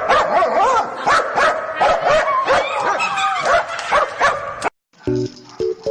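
A dog barking and yipping over and over in quick succession, its calls bending up and down in pitch. It cuts off suddenly near the end, and a keyboard tune starts.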